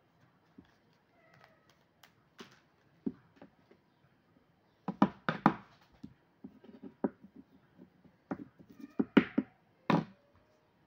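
Hands handling food and wrappers on a cutting board: scattered taps and knocks, with a cluster of louder strikes about five seconds in and another near the end.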